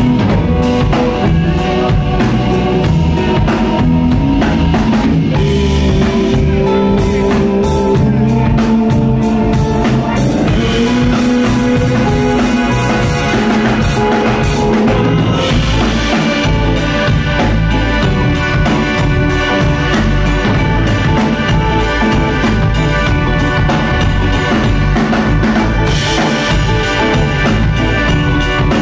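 Live instrumental acid-jazz quartet playing: Hammond organ holding long notes over electric bass and a steady drum-kit groove, with electric guitar. The cymbals grow brighter about halfway through.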